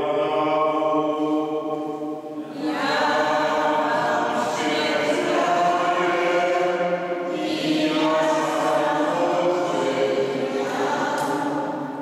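A priest chanting a liturgical text into a microphone, singing long held notes in phrases. There is a short break about two and a half seconds in and another near the end.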